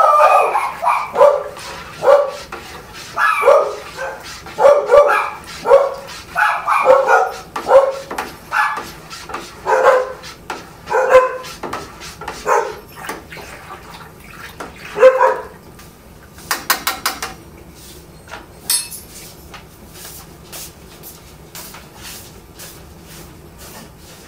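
A dog barking over and over, about one or two barks a second, stopping about fifteen seconds in. A quick rattle of clicks follows, then scattered light ticks.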